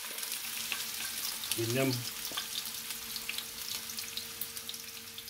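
Diced onions sizzling in hot oil in a frying pan, just tipped in, with a steady hiss and many small crackling pops.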